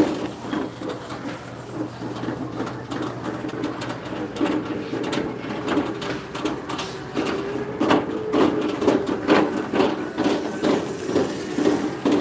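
Shopping cart being pushed across a store floor, its wheels rattling and clicking over a wavering hum; it sounds all raggy.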